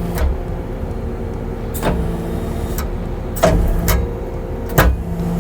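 Kubota skid steer's diesel engine running steadily with continuous hydraulic flow powering a tree spade. Several sharp clicks come at uneven intervals, some followed by short spells of a lower hum, as the spade's blades are worked one after another.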